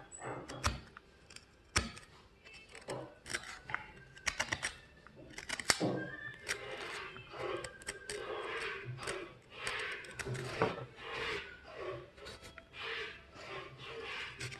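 Spoon carving knife being buffed: irregular rubbing and scraping strokes of the blade against the buffing wheel, with a few sharp clicks.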